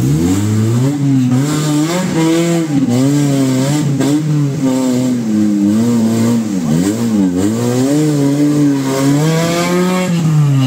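Maruti Suzuki Gypsy 4x4's engine revving hard under load as it climbs a muddy rut. The pitch rises and falls again and again, every second or so.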